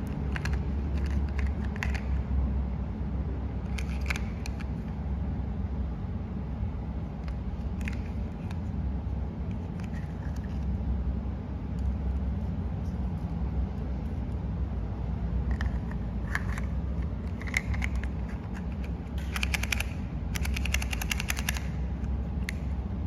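Hard plastic toy French fries and their plastic carton clicking and clattering as they are handled, pulled out and slid back in, with scattered clicks and a quick run of clicks near the end, over a steady low rumble.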